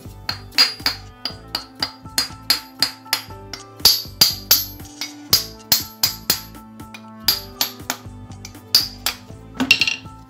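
Repeated light hammer taps on a machined metal housing, about three a second, driving its two halves together onto dowel pins. Background music plays under the taps.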